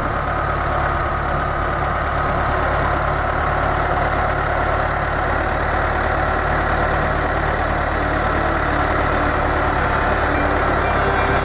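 Engine running steadily at an even speed, with a low drone throughout; a few extra steady tones come in near the end.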